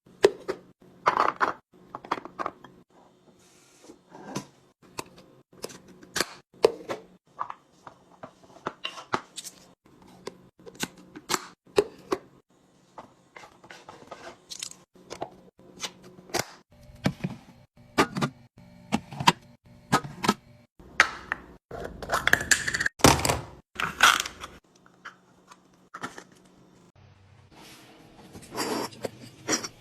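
Containers and packaging being handled and set down: a steady run of sharp clicks, taps and knocks, with a longer stretch of rustling and scraping a little past two-thirds through.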